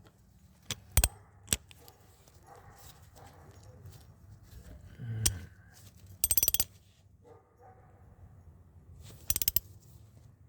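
Ratchet wrench clicking in two short quick bursts, about six seconds in and again near the end, as an engine head temperature sensor is snugged up; a few single metallic clicks of tool handling before it.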